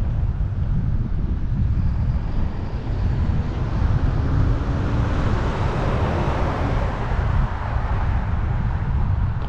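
Wind buffeting the microphone of a moving bicycle, a steady low rumble, with a hiss that swells and fades around the middle.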